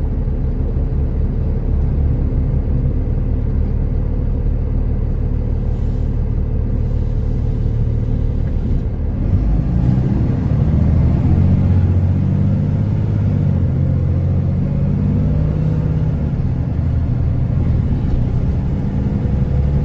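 Diesel engine and road noise of a T360 concrete agitator truck heard from inside the cab: a steady low drone that grows louder from about halfway through, its pitch wavering up and down as the engine works harder.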